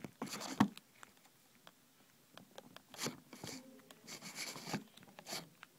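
Camera handling noise: a sharp knock at the start and another about half a second in, then scattered clicks and rustling as the fallen camera is picked up and moved.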